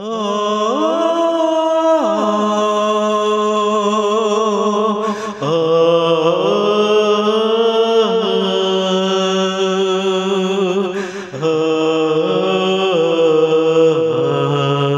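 Opening of a song: music of long held notes with vibrato and slow slides between pitches, the harmony shifting about every five to six seconds.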